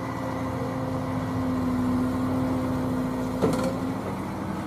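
Wheeled excavator's diesel engine running steadily while it works, with a single clank about three and a half seconds in; the engine note shifts slightly soon after.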